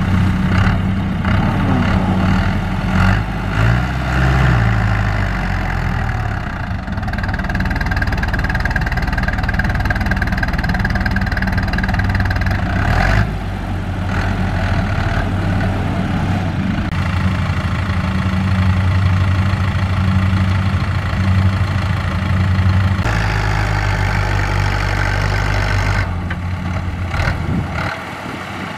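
Changfa CFD504 tractor's diesel engine running under load while the tractor, bogged in mud with a loaded trailer, works to drive out. The pitch rises and falls a few seconds in, and the engine note shifts abruptly several times.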